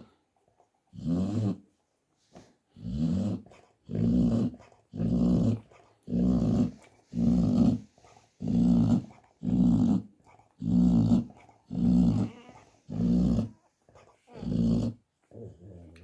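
An American Staffordshire terrier snoring in her sleep: a low, rattling snore about once a second, each lasting roughly half a second.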